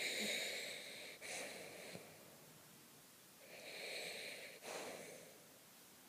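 French poodle snoring in its sleep: two long snoring breaths about three and a half seconds apart, each broken by a brief pause partway through.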